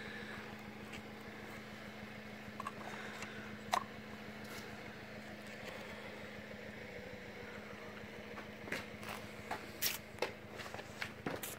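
A steady low hum with scattered short clicks and taps, which come more often in the last few seconds.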